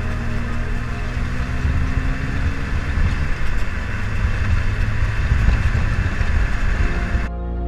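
BMW E28's engine and road noise heard from inside the cabin while driving, a steady low rumble. Near the end it cuts suddenly to background music.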